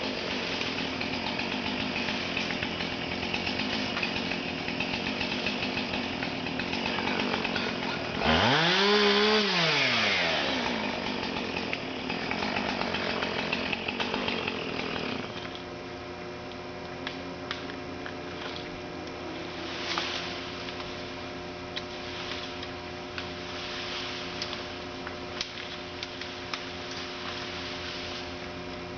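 Chainsaw running, with one loud rev that rises and falls about 8 s in. From about 15 s it gives way to a quieter, steady engine hum with a few light clicks.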